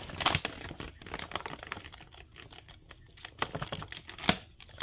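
Large plastic bag of starch crinkling as it is handled: a run of irregular small crackles and clicks, with a sharper one about four seconds in.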